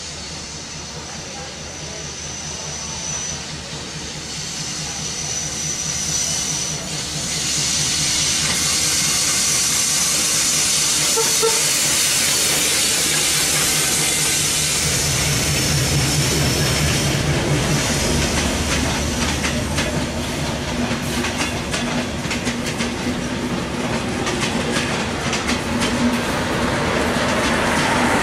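Bangladesh Railway diesel locomotive hauling an intercity passenger train approaches and passes close by. The rail hiss grows louder over the first several seconds, the locomotive's diesel engine drone comes through as it goes past about halfway, then the coaches follow with a steady clickety-clack of wheels over the rail joints.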